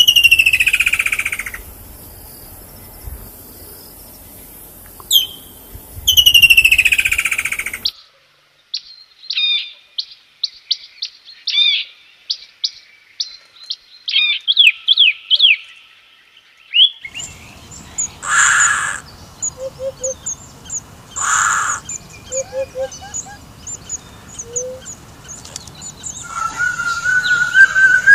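A string of bird calls from different species. First comes a woodland kingfisher: three times a sharp high note drops into a long falling trill. Then a rock nuthatch gives a rapid run of short chirps, mixed bird calls follow, and near the end a hawk-cuckoo starts a rising whistle.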